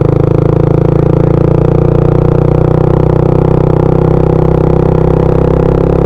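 Motor scooter engine running at a steady, unchanging pitch under throttle as the scooter climbs a slope, its firing pulses making an even drone.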